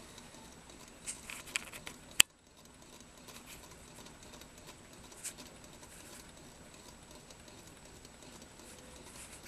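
Small homemade stove-top Stirling engine running, its crankshaft and linkage giving a fast, light clicking patter with some friction noise not yet worked out: "a little noisy, a little friction to clean up yet". A single sharp click about two seconds in is the loudest sound.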